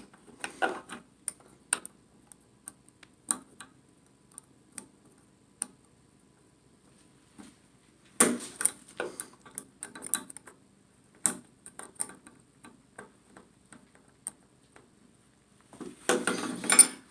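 Scattered small metal clicks and taps of a hand tool working the collar on a Delta Monitor shower valve cartridge, with a denser clatter of knocks and scrapes about eight seconds in and again near the end.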